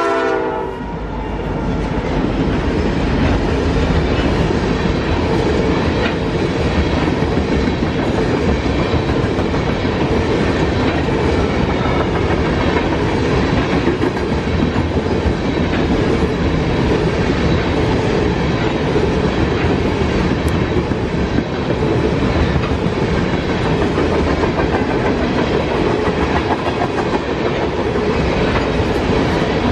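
Norfolk Southern freight train rolling past, its wheels clattering steadily over the rails for the whole stretch.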